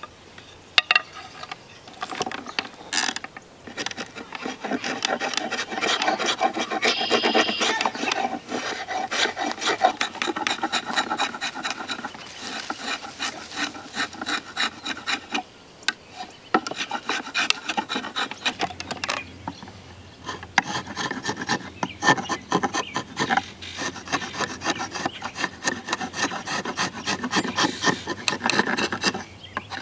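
Spokeshave shaving down a wooden hammer handle held in a shaving horse: quick, repeated scraping strokes of the blade across the wood, starting about two seconds in, with a short pause about halfway.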